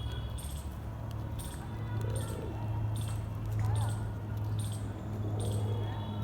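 Short high-pitched squeaky chirps repeated roughly once a second, with a few soft wavering low calls in between, from a pet talking parrot, over a steady low hum.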